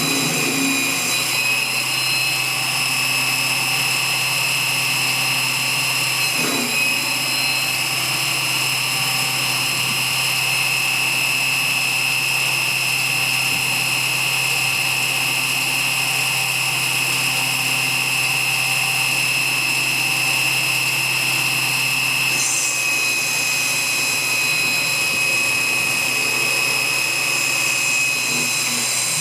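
CNC-converted 7x14 mini lathe running, its spindle motor and NEMA 17 stepper drives giving a steady, loud mechanical whine over a low hum. The whine shifts slightly about half a second in, around six and a half seconds in and again around twenty-two seconds in.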